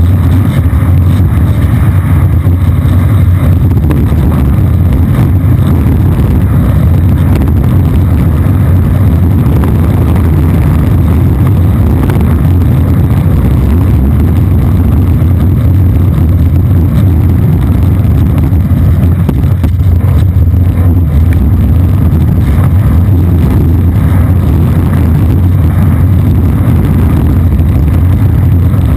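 Longboard wheels rolling fast over asphalt: a loud, steady low rumble.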